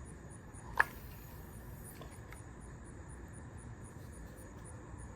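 Insect chirping in a steady train of short high-pitched pulses, about four a second, with a single sharp click about a second in.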